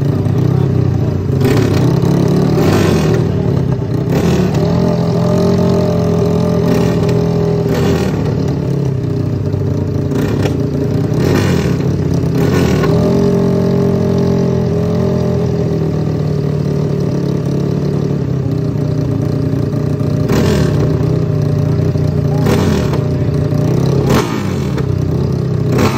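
Sport quad ATV engines idling at the start line and being revved over and over, with the pitch rising and falling and sharp throttle blips every few seconds.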